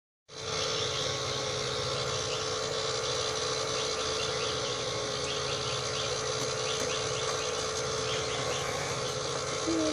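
Electric bubble machine's fan motor running with a steady whine and hum, with faint high chirps in the background and a brief child's vocal sound near the end.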